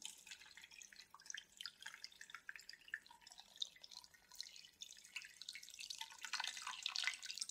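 Water poured in a thin stream over a raw pork knuckle in a pressure cooker pot, splashing and trickling. It grows a little fuller near the end.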